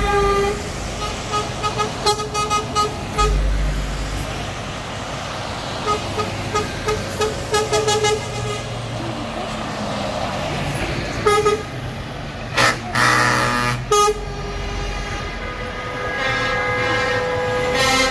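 Lorries driving past with their diesel engines running, sounding air horns in strings of short toots and longer blasts. The loudest blast comes about two-thirds of the way in, and a steady multi-note horn starts near the end.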